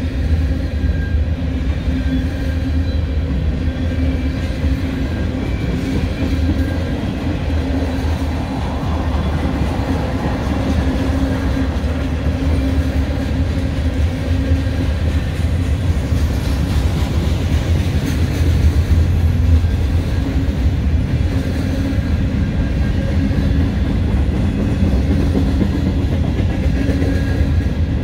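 Steady rumble of a freight train's cars rolling past at speed: covered hoppers and boxcars with steel wheels running on the rail, a continuous low rolling noise that holds level throughout.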